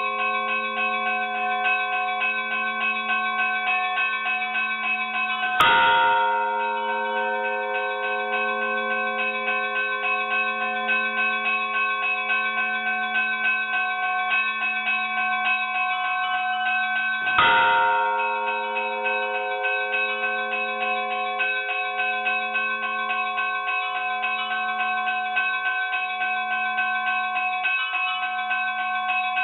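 Church bells ringing in a fast, continuous pattern of many overlapping tones, with a louder, deeper bell stroke twice, about 6 and 17 seconds in.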